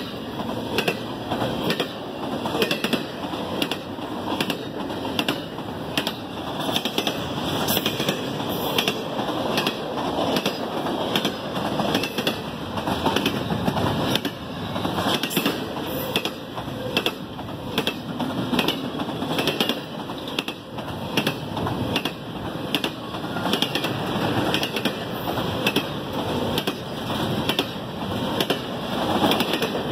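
CSX double-stack intermodal container train rolling by: a steady rumble of steel wheels on rail, broken by repeated sharp wheel clicks about once or twice a second.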